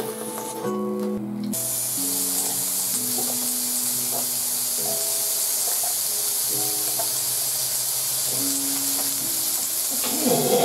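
Slices of raw meat sizzling on a hot tabletop grill plate, the hiss starting abruptly about a second and a half in as the meat goes down and then holding steady. Background music with long held notes plays underneath.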